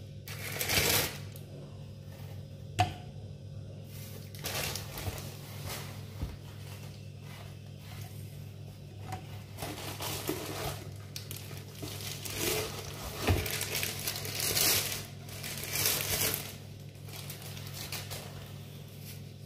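Cardboard box and plastic packaging being handled and unpacked: rustling and crinkling in bursts, with a sharp click about three seconds in and a knock about 13 seconds in.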